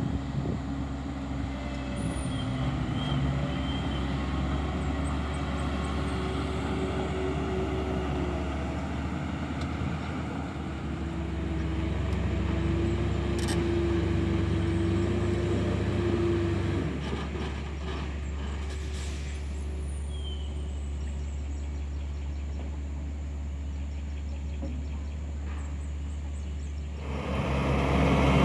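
Heavy diesel construction machinery running with a steady low drone, with a few drawn-out squeals in the middle, growing clearly louder near the end.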